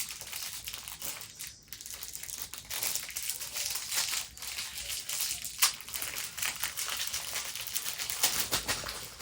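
Plastic wrapping crinkling and crackling as small mochi squishy toys are handled and unwrapped, with irregular sharp crackles throughout and one louder crackle about five and a half seconds in.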